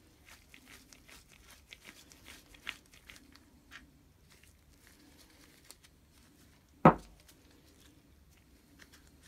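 Gloved hands unscrewing a threaded spindle piece from a 1950s Wolf Cub drill's metal housing: light scraping, rubbing and small clicks for the first few seconds. About seven seconds in, one sharp knock as the small metal part is set down on the wooden bench.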